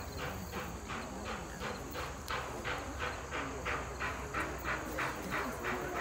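Steam locomotive working toward the crowd, its exhaust chuffing in an even beat of about three a second.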